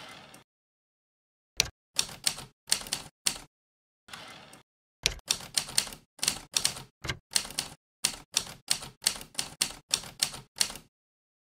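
Manual typewriter keys striking the paper in quick runs of keystrokes with short pauses between words. A softer, longer rasping sound comes about four seconds in.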